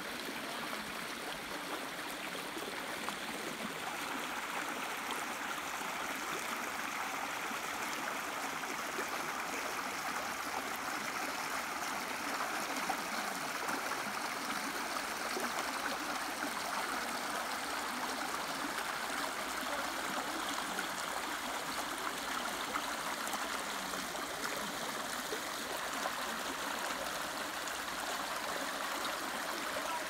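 Shallow rocky creek babbling steadily as water runs over small drops between the rocks.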